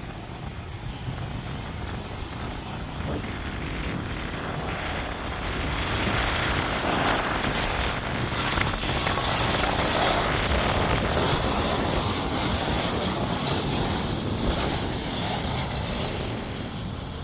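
Airbus A320-232 airliner with IAE V2500 jet engines on final approach, passing close overhead with gear down: a steady jet rumble that swells to its loudest midway, then eases slightly, with a faint high whine that falls in pitch as it goes by.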